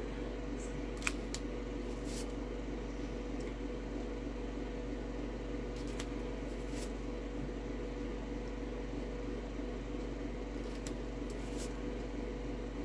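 A steady low background hum, with a few faint clicks and ticks of plastic stencil sheets being handled.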